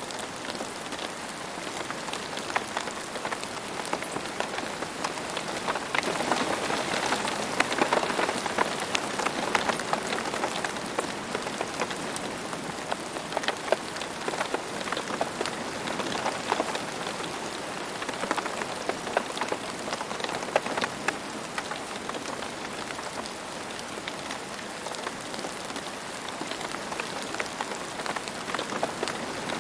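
Steady rain falling on the ground, a dense hiss of drops with many sharp individual drop hits, a little heavier about a quarter of the way in.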